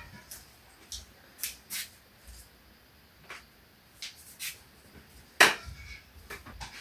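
Scattered clicks and knocks of kitchen utensils and dishes, with one much sharper knock about five and a half seconds in.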